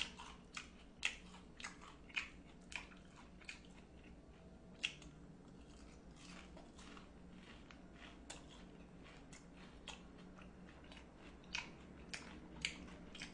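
A person chewing a bite of breaded, deep-fried pork cutlet close to the microphone: short, faint crunches about every half second at first, thinning out in the middle, with a few more near the end.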